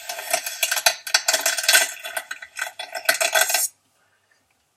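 Hair being pulled out of a hairbrush: a run of dense, scratchy crackling strokes that stops about three and a half seconds in. It is a recording played back through a phone speaker.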